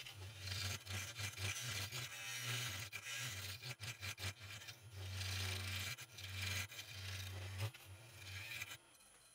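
Turning tool cutting across the face of a spinning wood-and-resin blank on a wood lathe: an uneven scraping with a low hum under it, stopping near the end.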